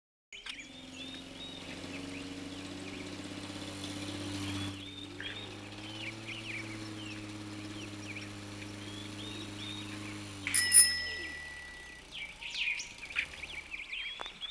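Birds chirping over a low steady drone. A sudden bright ding about ten and a half seconds in is the loudest moment, and the drone fades away shortly after while the chirping goes on.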